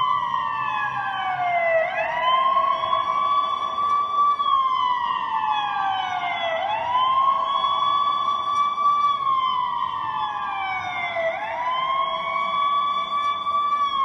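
Emergency-vehicle siren sound effect wailing, with a slow falling sweep, a quick rise and a short hold, repeating about every five seconds.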